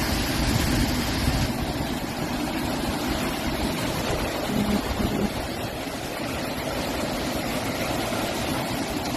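Hurricane wind blowing hard and steadily with rushing water, gusts buffeting the microphone with a low rumble.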